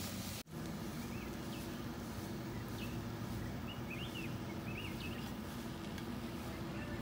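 A pan of shrimp sizzles for half a second, then cuts off. After that, a bird gives several short chirps over a steady low hum.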